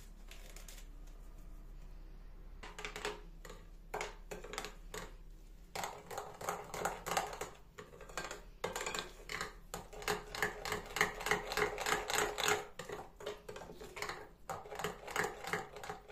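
Metal spoon stirring thick batter in a cut-glass bowl, clicking and scraping against the glass in quick strokes. It is sparse for the first few seconds, then becomes a fast, continuous run of clicks from about six seconds in.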